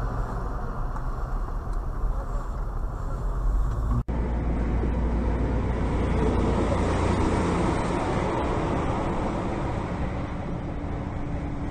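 Steady engine and road noise of a moving vehicle, heard through a dashcam. About four seconds in the sound drops out for an instant and a different recording takes over, a steadier, hissier road noise of highway driving.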